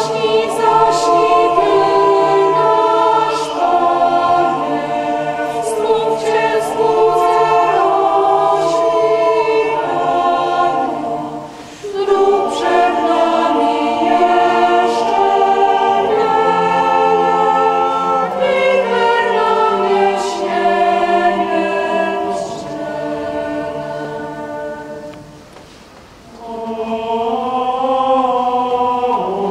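Mixed church choir of men's and women's voices singing a Polish Christmas carol in several parts. The phrases break briefly about eleven seconds in, and the singing fades low a few seconds before the end, then swells up again.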